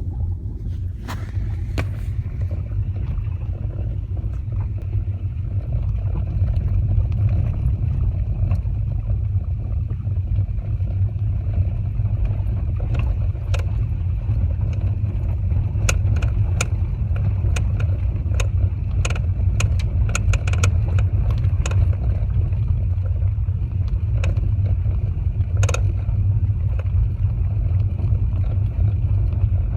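Mitsubishi Lancer 9 driving, with a steady low rumble of road noise. Sharp knocks come through it, scattered and more frequent in the second half, one standing out near the end: the knock of a worn shock absorber strut.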